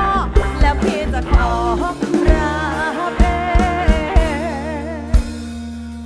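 Live band music with a female singer: drum kit hits and steady bass under her singing, which ends in a long held note with a wide vibrato that fades out near the end.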